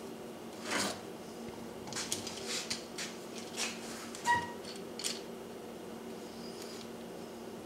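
A small metal bar clamp being handled and fitted onto a wooden joint on a workbench: a string of short clicks and scrapes, with a brief metallic clang that rings for a moment about four seconds in. A faint steady hum sits underneath.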